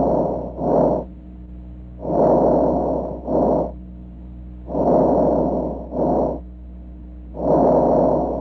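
Recorded lung sounds from chest auscultation: breath sounds in four regular cycles, each a longer, noisy airflow phase followed by a short one, about every two and a half seconds. No musical wheeze lines or crackle clicks show in the breaths. A steady low hum runs beneath.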